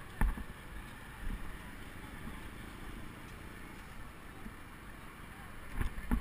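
Steady wind and rolling noise of a bicycle ride through city streets, with sharp knocks: a loud one just after the start, another about a second in, and two close together near the end.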